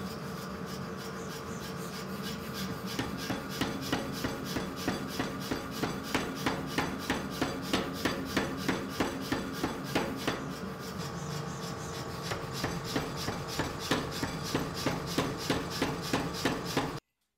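Power hammer running and striking a red-hot multibar Damascus billet in quick, regular blows, about three a second, over the steady hum of its motor. The blows pause for a moment about ten seconds in, resume, and everything cuts off suddenly near the end.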